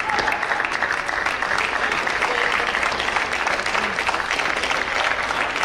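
Spectators applauding steadily at the end of a table tennis rally: a dense patter of many hands clapping.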